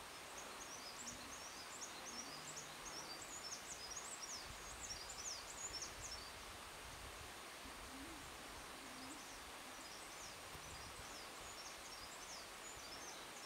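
Faint runs of quick, high-pitched bird chirps over a steady hiss. The chirping fills the first half and comes back near the end.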